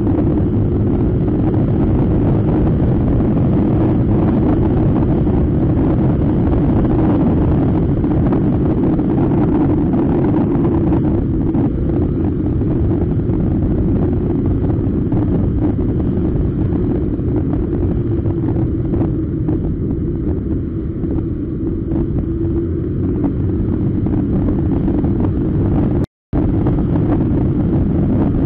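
Motor scooter riding at steady speed: a constant engine drone mixed with wind rushing over the camera, heard from the bike itself. Near the end the sound cuts out completely for a split second.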